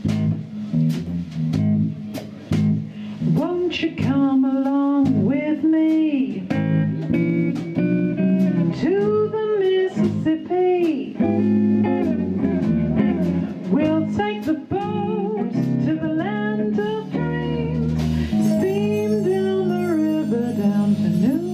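Live blues band playing an instrumental intro: a lead guitar line with bending notes over bass guitar and drums, the cymbals brighter from about eighteen seconds in.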